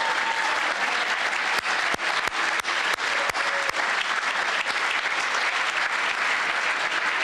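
Audience applauding steadily: a dense patter of many hands clapping, with a few louder single claps standing out between about one and a half and four seconds in.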